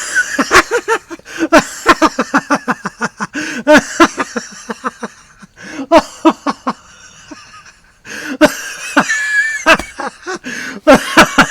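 A man laughing in quick rhythmic bursts of about four or five a second, breaking off briefly just under eight seconds in before laughing again.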